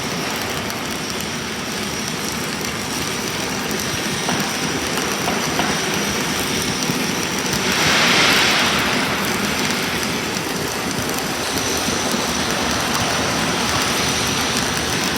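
Self-shielded flux-core arc welding with Lincoln Innershield NR305 5/64 in wire: a steady crackling arc through a long weld pass, swelling louder about eight seconds in.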